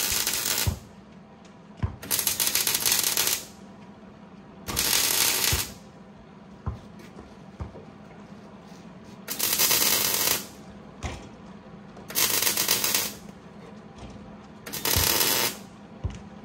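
Electric arc welder laying a series of short welds on a steel bracket against the truck frame: six crackling bursts of about a second each, separated by pauses of one to four seconds.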